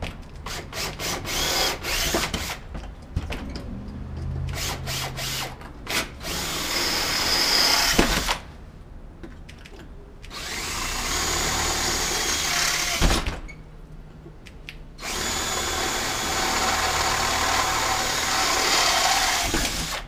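Cordless drill boring holes into an aluminum storefront door frame. First comes a string of short trigger pulses, then three longer runs of a few seconds each, with pauses between.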